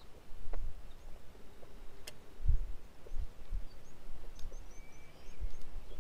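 Outdoor ambience with a few short, high bird chirps about four to five seconds in, and several dull low thumps earlier on.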